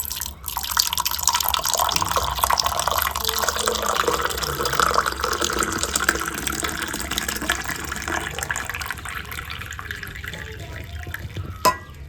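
Hot masala milk tea being poured from the tea pan through a tea strainer into a cup: a steady stream of splashing liquid that starts about half a second in and slowly tapers off. Near the end there is a single sharp click.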